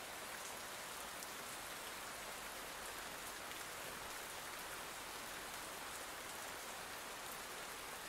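Steady rain falling: a soft, even hiss with faint scattered drop ticks.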